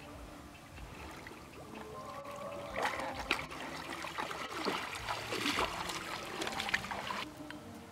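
Water splashing and trickling as sambar deer move in a pond. The splashing starts about three seconds in, lasts some four seconds and stops abruptly, over faint steady tones.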